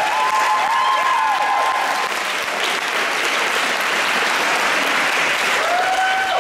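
Audience applauding steadily, with a few shouted cheers rising and falling in pitch near the start and again near the end.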